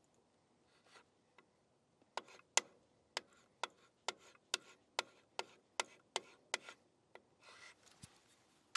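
A run of about a dozen sharp clicks, a little under half a second apart, then a short rasp near the end.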